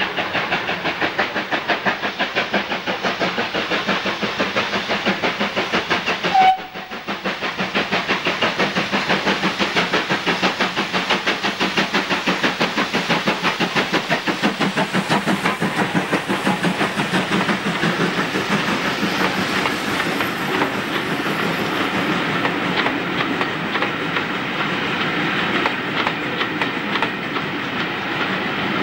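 GWR 2-8-0 tank locomotive 5224 passing close by, its exhaust beating fast and evenly at about three to four beats a second. About six and a half seconds in comes a brief high note and a split-second dropout. Toward the end the beats give way to the steady rumble and clatter of the coaches' wheels over the rail joints.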